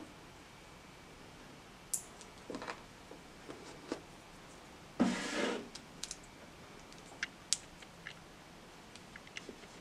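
Parts of a Naída CI cochlear implant sound processor and their plastic packaging being handled: scattered light clicks as the small pieces are fitted together, and a short rustle of plastic about five seconds in.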